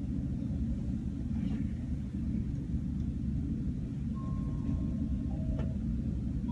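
Steady low rumble with no speech. A faint thin tone sounds about four seconds in, and a single sharp click follows shortly after.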